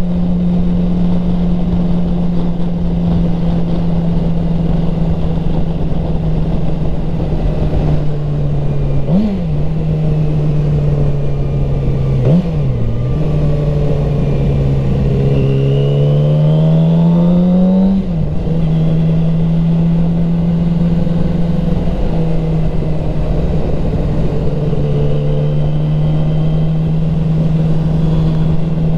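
2007 Yamaha R6's inline-four engine running at steady cruising revs. About nine and twelve seconds in come two short rev blips. Then it pulls with rising revs for about four seconds, the note drops sharply at an upshift, and it settles back to a steady cruise.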